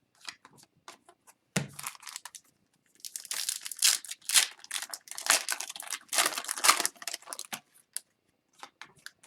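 Foil wrapper of a hockey card pack being torn and crinkled, after a few light clicks and a soft knock about a second and a half in.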